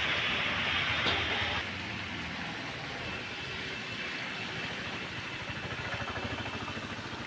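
Steady hiss of heavy rain on a wet street, dropping to a softer hiss about a second and a half in.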